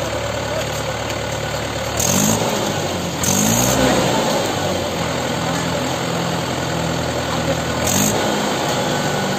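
Mahindra 575 DI tractor's four-cylinder diesel engine running at a steady idle, revved up and back down briefly three times, about two, three and eight seconds in, as its hydraulics raise the trolley to tip the load of mud.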